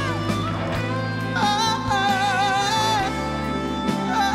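Male ballad singer with a live band: he holds a sung note with wide vibrato from about a second and a half in, then starts a phrase that slides down in pitch near the end.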